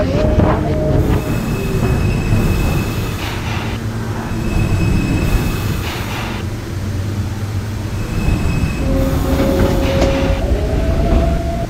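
New York City subway train running on the rails, with wheel squeal coming and going over the steady rumble. A motor whine climbs in pitch near the end.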